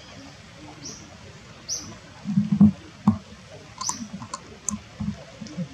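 Long-tailed macaque picking through dry leaves on stone: light leaf rustling with scattered short, high squeaks and a few dull low thumps about halfway through.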